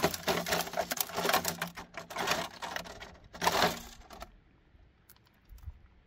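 Rapid clicking and rattling handling noise that stops about four seconds in.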